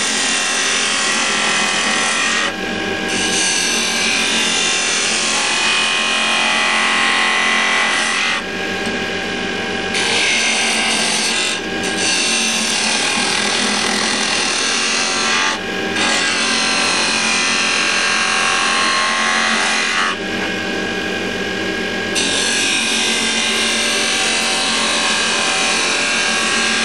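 Axminster wood lathe running with a steady motor hum while a narrow turning tool cuts the spinning wooden candlestick spindle, giving a continuous scraping hiss. The cutting noise stops briefly about five times as the tool comes off the wood, leaving only the lathe's hum.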